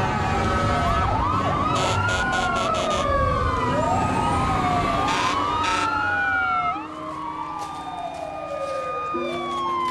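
Several fire engine sirens wailing at once, their pitches sweeping up and down and crossing over each other, over a low engine rumble that drops away about two-thirds of the way through.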